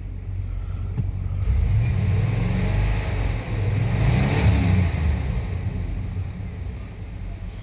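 1997 Suburban engine revved up from idle, its pitch rising over about three seconds and falling back to idle. The engine is one that the owner says wants to stumble when given gas, after a used mass airflow sensor was fitted.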